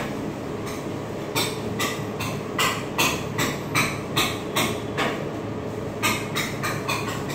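Flat metal spatulas scraping and tapping across the frozen steel plate of a rolled ice cream machine, about a dozen quick strokes in two runs with a short pause between, over a steady mechanical hum.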